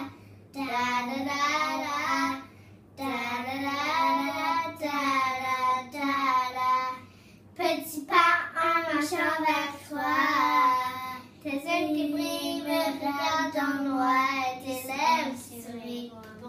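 Young girls singing a song in French, unaccompanied, line by line with short pauses between phrases.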